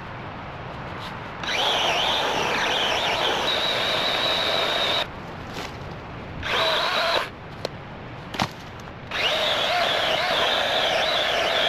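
Battery electric chainsaw cutting fallen trees in three runs. There is a first cut of about three and a half seconds, a short burst in the middle, and a long run from about nine seconds in. Its whine wavers in pitch as the chain bites into the wood.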